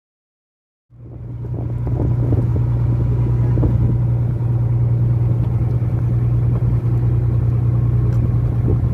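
Fishing boat's engine running steadily with a low drone, coming in about a second in.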